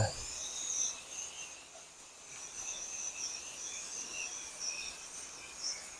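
Faint outdoor background with a steady, high-pitched chirping trill from insects.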